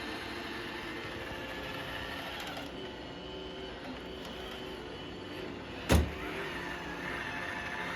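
Roomba i5+ robot vacuum running on carpet: a steady whirring hum of its vacuum and brush motors. About six seconds in there is a single sharp knock, the loudest sound here.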